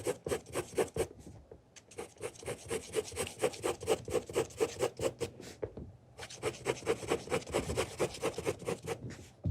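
Fast back-and-forth rubbing strokes on a surface for an ASMR trigger, about five a second, with two short pauses: about a second in and just before the six-second mark.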